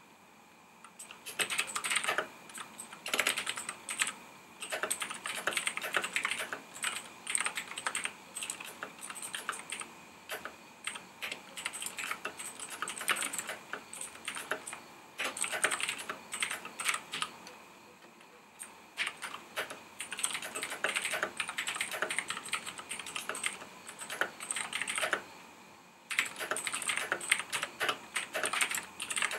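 Typing on a Razer BlackWidow Chroma mechanical keyboard: a fast, steady stream of key clicks that starts about a second in, with brief pauses about halfway through and again near the end.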